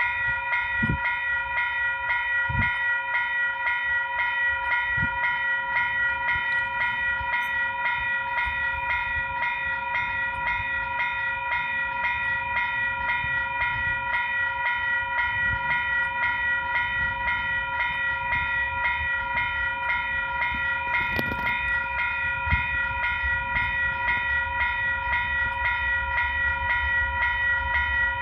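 Level crossing warning bell ringing in a rapid, even, repeated pattern as the crossing lights flash and the barrier lowers. A low rumble builds under it in the second half.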